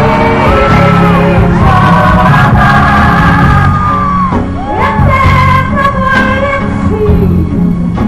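A female pop singer belts high, sustained notes with sliding vocal runs over a band playing a ballad.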